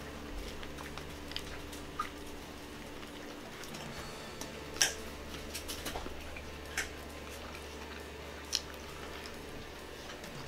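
A man chewing big mouthfuls of a soft-roll chicken bacon ranch sub. Wet mouth clicks and smacks stand out about 2, 5, 7 and 8.5 seconds in, over a steady low hum.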